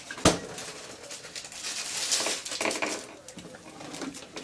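A ceramic mug knocks once, sharply, about a quarter second in. A person then sips and splutters breathily from it over the sink, clearing cinnamon from the mouth.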